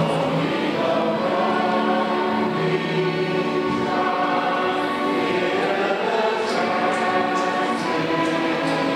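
A choir singing, several voices holding long notes together and moving from chord to chord.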